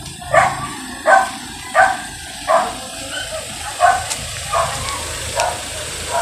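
A dog barking over and over, about one bark every 0.7 seconds, the later barks fainter, over the low steady rumble of a slow-moving vehicle.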